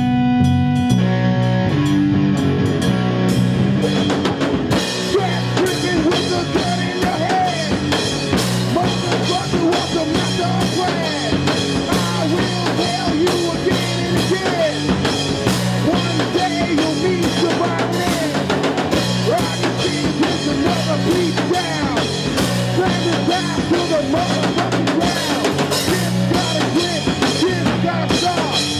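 Live rock band playing: electric guitar and bass riff, with the drum kit coming in about four seconds in and a man singing over it.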